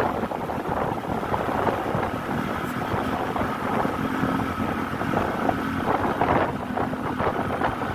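Large bus engine running, with wind buffeting the microphone.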